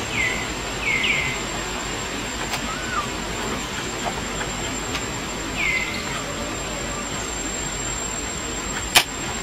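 Baby macaque giving short, high calls that fall in pitch: a few in the first second or so and one more near the middle, as it calls for its mother. A steady high whine runs underneath, and there is one sharp click near the end.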